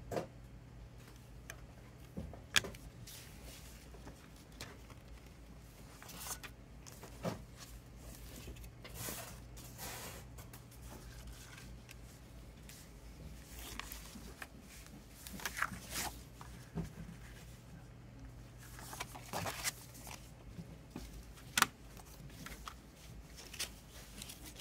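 Hands handling a plastic CD jewel case, its paper booklet and obi strip: scattered clicks and taps of the plastic case and short rustles of paper, with a sharp click about two and a half seconds in and another near the end.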